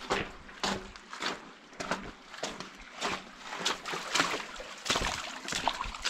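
Footsteps on wet gravel and in shallow creek water, a step about every two-thirds of a second, with light splashing.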